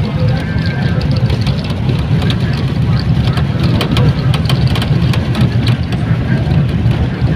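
Cabin noise inside a moving bus: a steady low engine and road rumble with frequent rattles and knocks.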